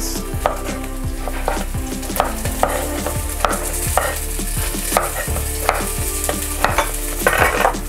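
Chef's knife cutting tomatoes on a wooden cutting board, the blade knocking on the board about twice a second, over the steady sizzle of onions and peppers frying in a pot.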